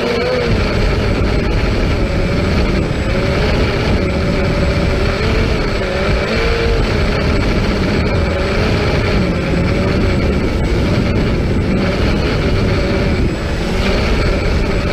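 Drone's electric motors and propellers whining steadily, their pitch wavering up and down as the throttle shifts, over a heavy low rumble.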